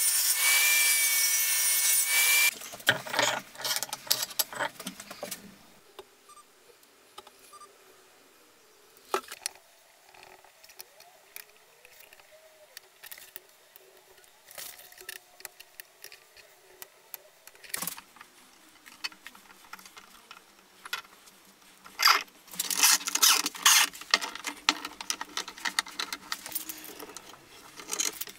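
Table saw ripping a thin strip of hardwood, its cut ending about two and a half seconds in. Then quiet handling of the wood strips, and near the end a run of loud clattering knocks from metal bar clamps being set and tightened on the glued-up board.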